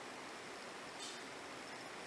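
Quiet room tone with a steady hiss, and one faint brief rustle about a second in.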